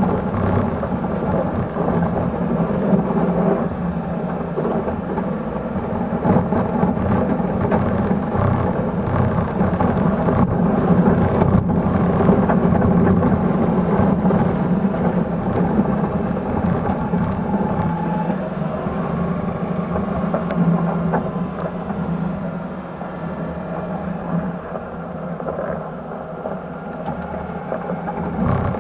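1996 Suzuki Carry mini truck's small three-cylinder engine running under load while its 72-inch plow pushes a wave of snow, heard as a steady low rumble mixed with snow rushing along the blade. It gets quieter for the last several seconds as the snow pile at the blade thins out.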